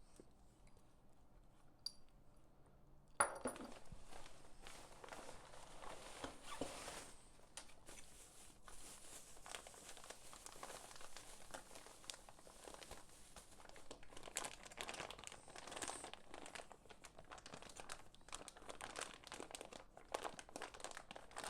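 Packaging crinkling and rustling as it is handled and pulled open, starting about three seconds in after a quiet start with one small click.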